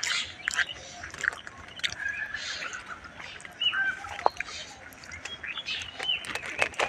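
Small birds calling with short, clear whistled chirps, several of them dipping in pitch, over scattered clicks and rustling.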